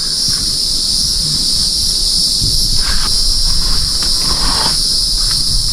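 Chorus of insects buzzing steadily at a high pitch, unbroken throughout.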